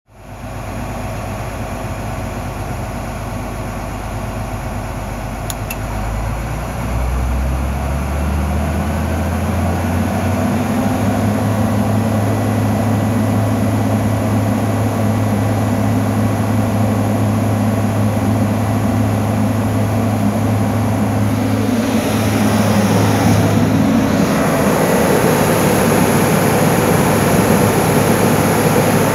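Iveco 10.3-litre turbocharged six-cylinder diesel in a New Holland CR9070 combine, running at a low idle and then revving up between about six and ten seconds in. It then holds steady at about 2100 rpm under light load, a little louder from about 22 seconds in.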